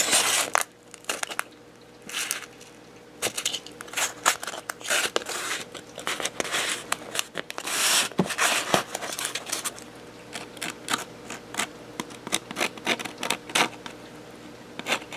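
Hands pressing and handling Depron foam parts: irregular short rubbing and scraping noises of foam against foam and fingers.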